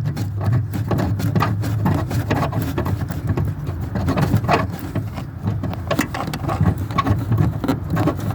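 Close rubbing, scraping and scattered small clicks of hands working in the tailgate trim, turning out the long 10 mm nut that holds the rear lamp lens. The rubbing and clicking sit over a steady low hum.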